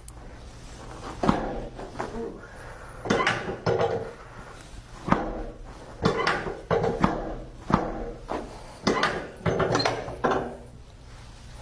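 Chiropractic adjustments: a series of about a dozen sharp cracks and thuds as joints are manipulated, irregularly spaced.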